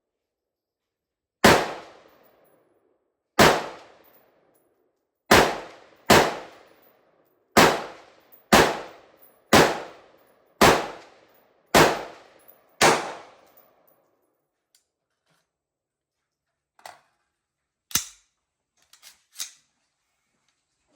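BCM AR-15 rifle firing 5.56 rounds semi-automatically: ten shots about a second apart, each with a short ringing echo. A few faint clicks and knocks follow near the end.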